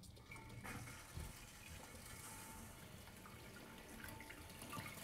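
Fill valve of a newly installed toilet letting water into the empty tank after the supply is turned on: a faint hiss of running water that grows a little louder near the end.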